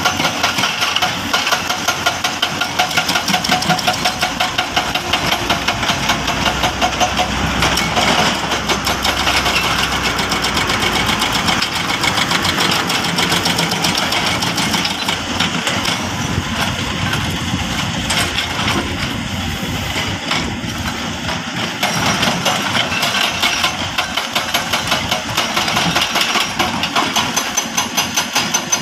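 Heavy diesel construction machine, an excavator or dump truck, running with a rapid, even pulse. The sound grows fuller and lower from about six to ten seconds in.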